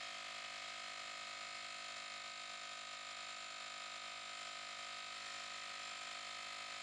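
Cordless handheld tire inflator's compressor running steadily as it pumps up a car tire, the pressure climbing through about 36 PSI toward its preset 40 PSI cut-off.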